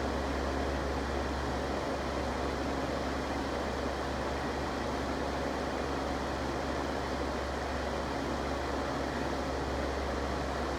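Electric fan running steadily: an even rush of air over a low, constant motor hum.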